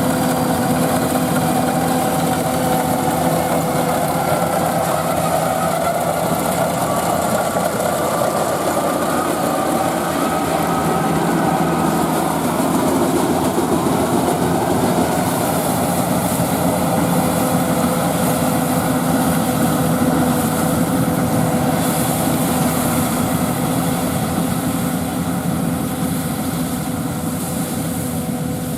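Rice combine harvester running steadily with its engine under load, the engine note dipping and rising a little partway through.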